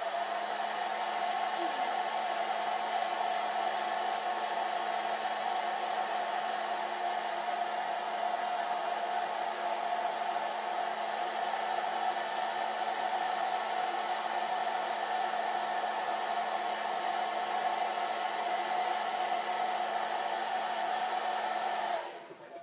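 Hair dryer running steadily with an even whine, then switched off near the end.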